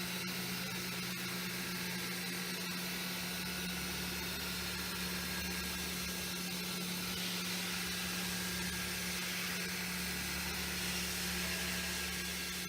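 CNC milling machine running steadily: a constant low hum under an even hiss.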